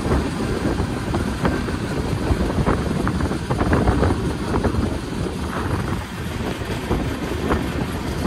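Express passenger train running: a steady low rumble of the moving coach, with frequent irregular clicks and rattles.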